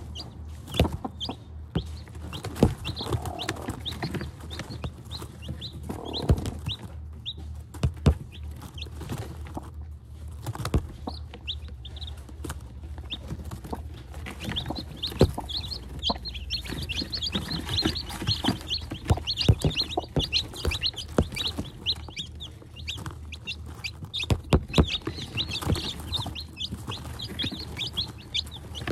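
Newly hatched chicks peeping, short high chirps that grow busier from about halfway, with a hen clucking lower among them. Scattered sharp taps come and go.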